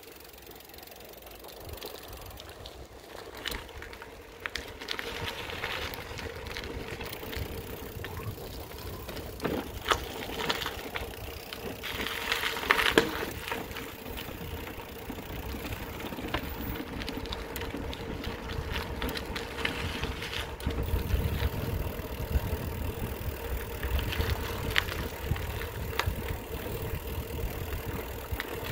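A small vehicle running steadily as it rolls along, with a constant hum, a low rumble and scattered rattles and clicks.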